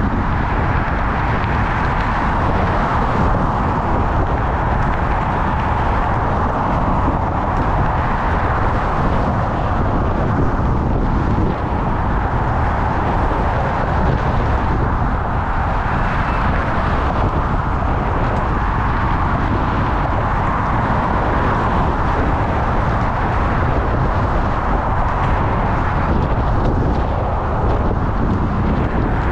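Steady rush of wind and road noise picked up by a GoPro camera while cycling, with motor traffic mixed in.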